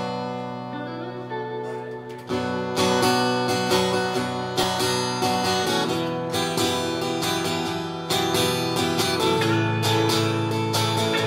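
An acoustic guitar and an electric guitar playing an instrumental intro, with no voice yet. A chord rings and fades, then rhythmic strumming starts about two seconds in and grows louder with a chord change near the end.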